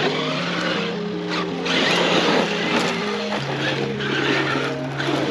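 Background music with held notes stepping in pitch over a steady bass, mixed with the motor and tyre noise of a Traxxas Maxx electric RC monster truck driving on dirt, which swells and fades every second or so.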